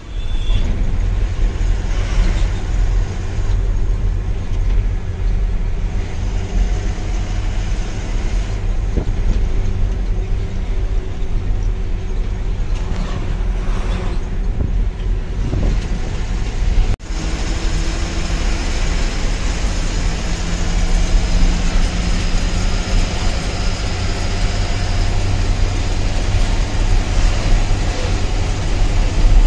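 Heavy goods truck on the move: steady diesel engine and road noise, strong in the low rumble, with a brief cut just over halfway through.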